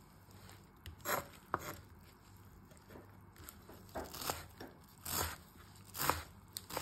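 A large kitchen knife crunching through a bundle of dry rice vermicelli against a wooden cutting board. There are about half a dozen separate crisp chops, the first about a second in, spaced irregularly.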